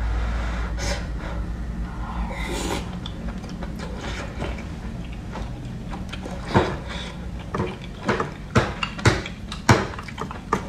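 Eating sounds from a bowl of hotpot: soft, wet slurping and chewing, then from about six seconds in a run of sharp clicks and taps of chopsticks against the bowl.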